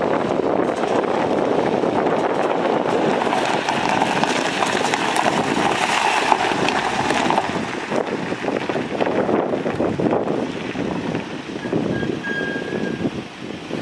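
The 2005 Isuzu NPR truck's 5.2-litre turbo diesel running with a dense, steady mechanical noise that eases off somewhat in the second half.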